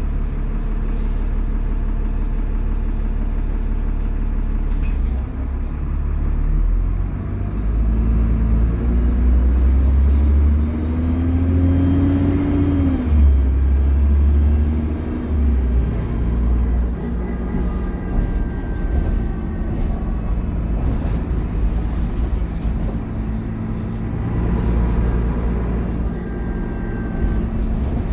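Dennis Trident double-decker bus's diesel engine running hard with a heavy, steady rumble and a whining tone over it; the engine note rises and falls back once about halfway through.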